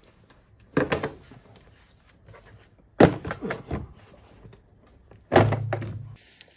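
Three sharp clunks, about two seconds apart, from hard parts and tools being handled during engine-bay work. The last clunk carries a brief low buzz.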